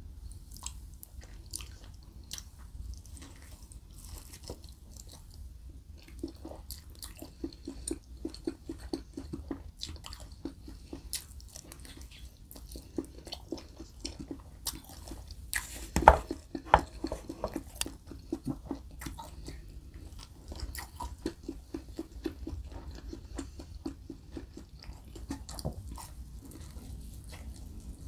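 Close-miked eating sounds of a person biting and chewing barbecue-sauced ribs: runs of quick, even chewing clicks and mouth noises. One sharp, loud click stands out about sixteen seconds in.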